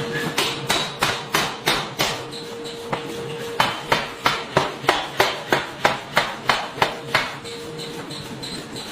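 Pneumatic forging hammer striking hot metal in quick, evenly spaced blows: a run of about six strikes, a pause, then a run of about a dozen at roughly three a second. A steady hum is heard between the runs.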